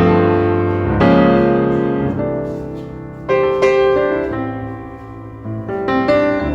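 Background piano music: slow chords struck and left to ring and fade, with fresh chords about a second in and again about three and a half seconds in.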